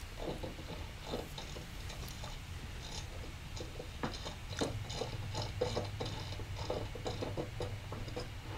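Faint, irregular light clicks and ticks of metal as a check-valve removal tool is turned by hand, unscrewing the brass check valve from a Coleman 530 stove's fuel tank. The clicks come more often in the second half.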